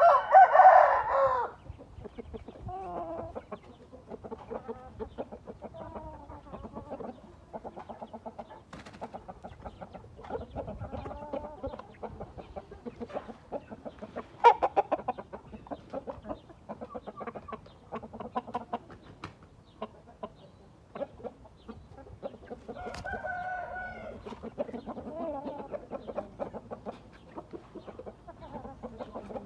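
Gamefowl roosters: one loud crow right at the start, then scattered clucks and short clicks, and another, softer call about two-thirds of the way through.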